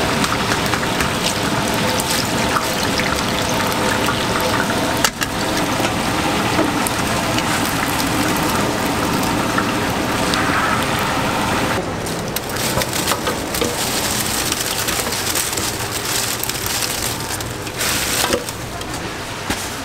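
Battered chicken feet deep-frying in a large wok of hot oil: a loud, steady sizzle and crackle. About twelve seconds in, the sizzle falls away to a lighter, patchier crackle with scattered clicks.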